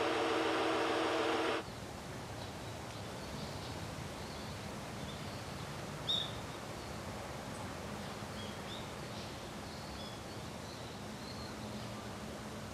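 A train horn sounds a steady multi-tone chord for about the first second and a half, then cuts off sharply. Small birds then chirp sparsely over a faint outdoor background, with one louder chirp about six seconds in.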